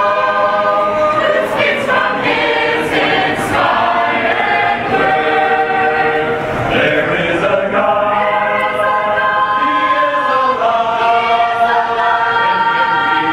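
Mixed choir of young Mennonite men and women singing a cappella, holding long notes that change every second or two.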